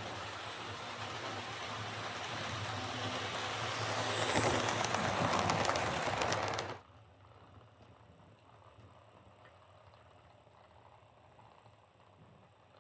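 OO gauge Oxford Rail Adams Radial tank locomotive model running on track, its motor and gears whirring and the wheels rolling, growing louder, then stopping abruptly about two-thirds of the way in. Its gearbox has been cleaned of old dried, congealed grease that had made it run slow.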